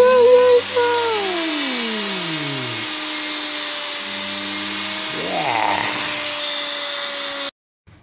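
Washing machine universal motor running unloaded at high speed off a light dimmer, a loud steady whirring whine. A tone slides down in pitch between about one and three seconds in, and the sound cuts off suddenly near the end.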